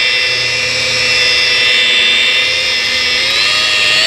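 DeWalt rotary polisher with a wool pad running steadily at low speed on car paint, a continuous electric-motor whine. About three seconds in, the whine rises in pitch and holds there as the speed is turned up.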